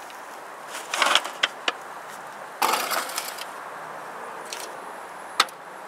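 Metal grilling tongs clattering and clinking against the grill grates and a pan as food is lifted off: a short rattle about a second in and another near the middle, a few single clicks between them, and one sharp click near the end.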